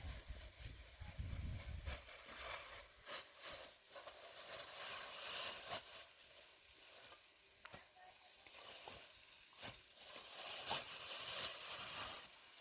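Faint sizzling with scattered sharp crackles, as of food frying in a pan.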